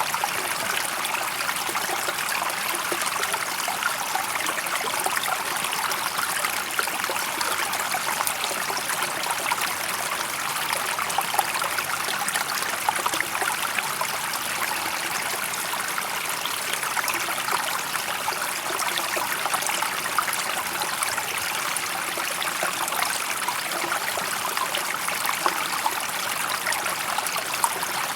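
Steady rushing and trickling of running water, like a stream, holding an even level throughout.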